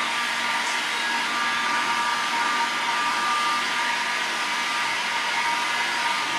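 Hot-air heat gun running steadily, a blowing hiss with a steady high whine, as it warms a car's paint surface before sealant goes on.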